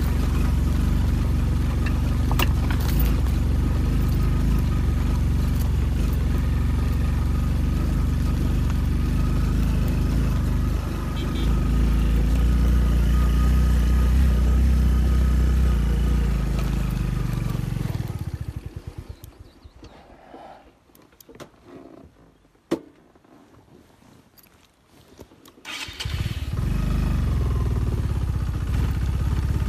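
Motorcycle engine running steadily on a rough rocky track, then dying away about two-thirds of the way through. A few seconds of near quiet follow with a single sharp click, and the engine comes back near the end.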